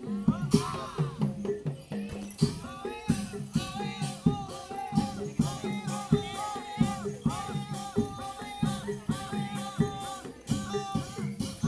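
Live Reog gamelan music: sharp drum strokes and repeated struck gong-chime notes in a steady rhythm, with a wavering high reed melody joining about two seconds in and a rattling shaken percussion.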